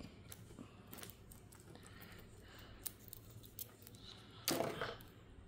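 A few faint clicks and taps of plastic action figures being handled, with a short, louder vocal sound about four and a half seconds in.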